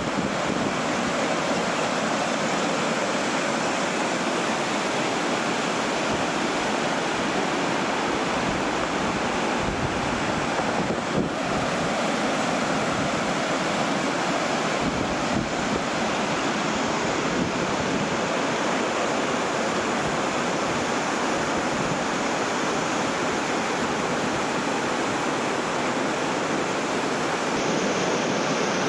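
Water of a stream rushing steadily.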